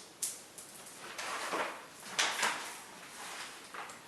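Handling noises: about four short rustling, sliding swishes, as of supplies being picked up and set out.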